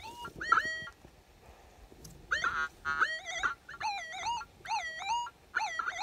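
Minelab CTX 3030 metal detector sounding target tones as its coil sweeps over the ground in all-metal mode: about six short bursts of warbling tones that jump and bend in pitch.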